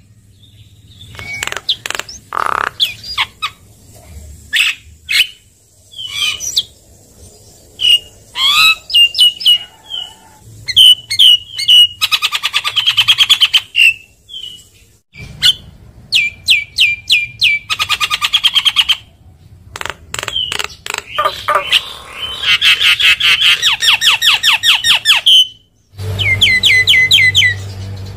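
Javan myna (jalak kebo) singing: a varied string of whistled and harsh chattering calls with long, fast rattling runs of repeated notes. The song breaks off abruptly about halfway through and again near the end, where separate recordings are joined.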